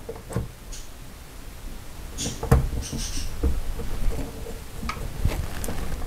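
Plastic faucet cartridge being pressed and worked down into its seat in a bathroom faucet body: a scatter of small clicks and knocks of plastic on metal.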